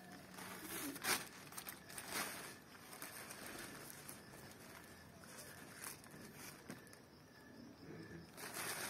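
Faint rustling and crinkling of a tissue-paper hot-air balloon being held upright as it fills with hot air from its burning wick, with a few short rustles scattered through.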